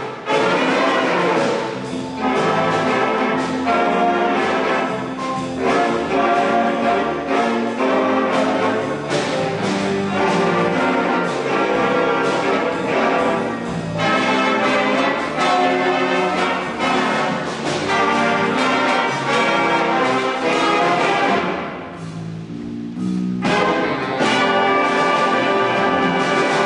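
A big band of saxophones, trumpets and trombones with piano playing a busy brass-led passage. About four-fifths of the way through the sound thins out for a moment, then the full band comes back in loud.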